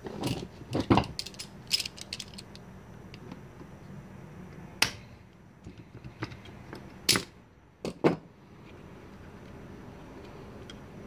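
Metal clicks and clatter of locking pliers and small parts on a Yamaha V-Star 650's aluminium carburetor body, as its float pin is gripped and the float worked out. A quick run of clicks comes first, then four single sharp clicks.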